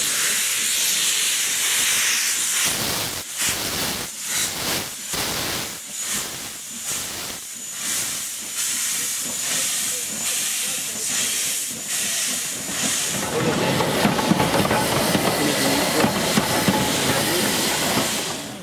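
LMS Jubilee steam locomotive No. 45690 moving off with its cylinder drain cocks open: a loud, steady hiss of steam, then irregular exhaust chuffs, about two a second. In the last few seconds a louder, rougher steam sound takes over as a small saddle-tank engine runs by.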